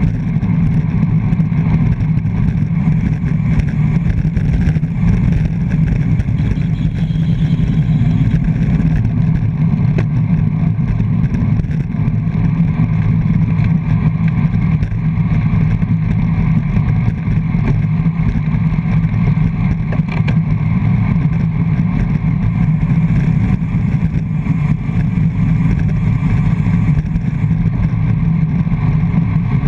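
Loud, steady low rumble of wind buffeting a GoPro camera's microphone on a road bike's front mount while riding at race speed.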